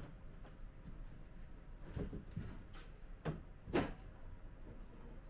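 Wooden trays and boxes being shifted and set down on a wooden cabinet top: a few separate wooden knocks, the loudest a little under four seconds in.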